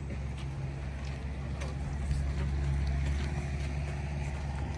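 An engine running steadily, an even low drone with no revving.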